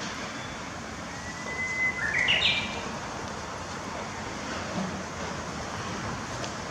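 Japanese bush warbler (uguisu) singing its hoo-hokekyo song once, about a second in: a long steady whistled note, then a quick flourish of short notes stepping up in pitch. A steady low background noise runs underneath.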